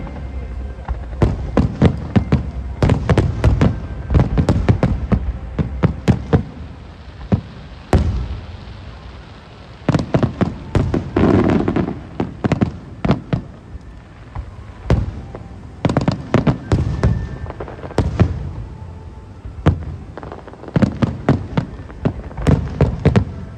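Aerial fireworks display: shells bursting in rapid volleys of bangs, thinning out around the middle and building again near the end.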